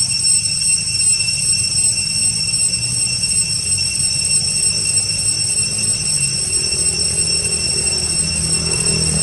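A steady high-pitched buzzing drone that does not change, over a low rumbling haze.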